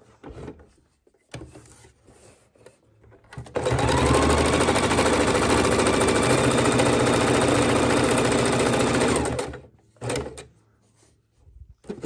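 Electric sewing machine stitching at speed for about six seconds, sewing down a hook-and-loop strip. It starts a few seconds in and stops abruptly near the end.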